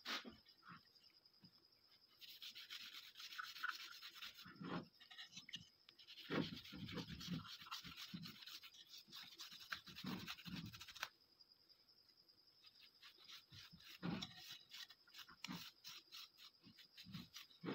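Faint, soft scratchy rubbing as a cloth pad wipes brown stain onto a bare wooden shotgun butt stock, in stretches of strokes, with a few dull knocks as the stock is moved on the bench.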